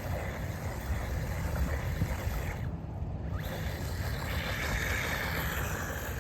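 Wind buffeting the microphone in a steady low rumble, with the whine of an electric RC buggy's motor and tyres swelling and fading as it drives past, about four to six seconds in.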